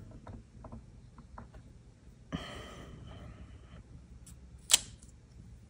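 Quiet handling of a clear acrylic stamp block pressed and rubbed onto torn scrap paper. There are a few faint small clicks, a soft rushing sound lasting about a second and a half from a little over two seconds in, and one sharp click near the end, which is the loudest sound.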